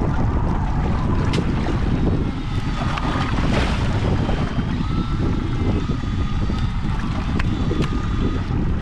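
Wind buffeting the microphone on an open boat at sea: a steady low rumble with sea noise, a few faint clicks, and a thin faint whine through the middle.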